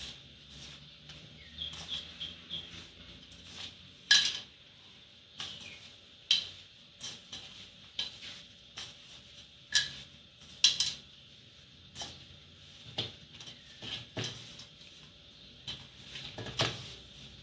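Hands kneading pastry dough in a stainless steel mixing bowl: irregular clinks and knocks against the metal bowl, which rings briefly after the loudest ones, about four seconds in and again around ten to eleven seconds in.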